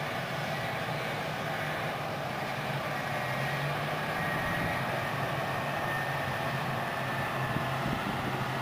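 CAT 657E twin-engine wheel tractor-scrapers passing close with full bowls, their diesel engines running hard under load. A faint high whine sits over the engine sound.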